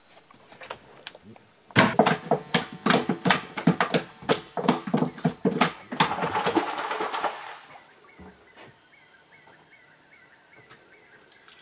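Freshly caught piranhas flapping on the wooden floorboards of the boat: a rapid run of knocks starting about two seconds in and lasting about four seconds, ending in a short rustle. A steady high-pitched insect chorus runs underneath.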